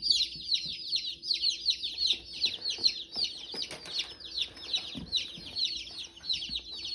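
A box of day-old chicks peeping nonstop: many high, down-slurred peeps overlapping, several each second.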